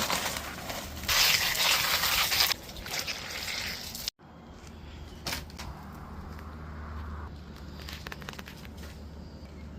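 Digging in soil: loud crunching and scraping for a couple of seconds, then after an abrupt break a quieter low rumble with a few faint clicks.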